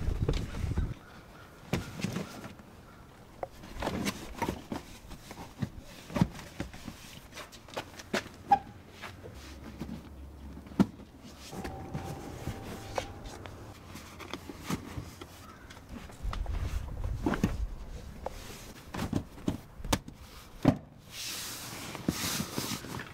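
Scattered knocks, clicks and rustling of a car's rear seat back and seat cushion being fitted back into place and pressed down by hand.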